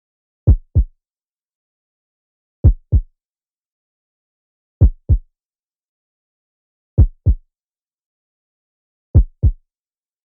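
Heartbeat sound effect: a lub-dub double thump, repeated five times about every two seconds with silence between. The first thump of each pair is a little louder than the second.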